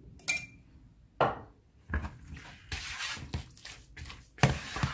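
A utensil clinks once on a bowl. Then come irregular scraping and rustling noises as raw chicken pieces are stirred together with spices in the bowl.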